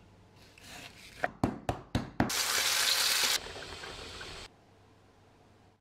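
About five quick, sharp knocks, then pork steaks frying in a pan: a loud sizzle that drops suddenly to a quieter sizzle and cuts off abruptly.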